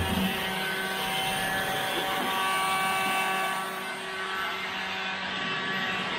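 Electric power sander running steadily as it scuffs the painted steel truck bed, giving the surface a tooth for the bed liner to grip. A constant motor hum with a rough sanding hiss over it.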